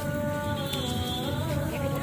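Background music with long, steady held notes.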